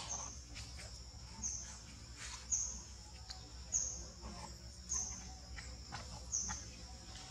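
Outdoor ambience: a short, high chirp repeats about once a second over a steady high insect-like hiss, with a few faint clicks between.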